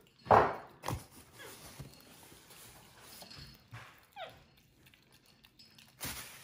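A capuchin monkey gives short squeaky chirps, a couple of them about four seconds in. There is a brief loud knock just after the start.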